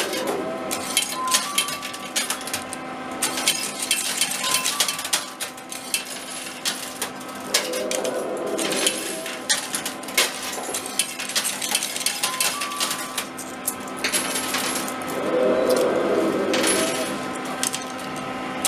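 Coins clattering and clinking in an arcade coin pusher as coins drop onto the moving shelf and are shoved across the metal tray. Under it runs a steady electrical hum with a few short beeps, and a louder swell of clatter comes about every eight seconds.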